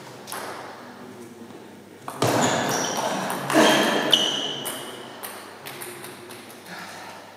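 Table tennis rally: a plastic ball clicking off bats and table. About two seconds in comes a louder, noisier stretch of about two seconds with several high ringing pings, then it dies away as the point ends.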